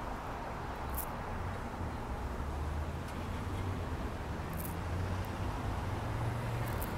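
Two city transit buses rolling slowly forward, their engines a low steady drone that grows gradually louder as they approach. Three brief high-pitched sounds cut in, about one second in, again past the halfway point and near the end.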